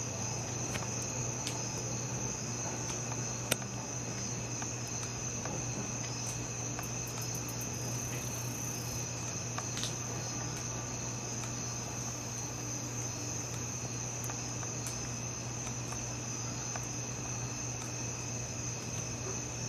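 Steady high-pitched chorus of night insects, crickets among them, over a steady low hum, with one sharp click about three and a half seconds in.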